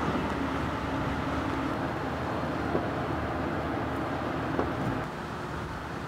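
Steady deck noise of a ship under way: a machinery hum with wind and rushing water, and two faint knocks near the middle. The level drops a little about five seconds in.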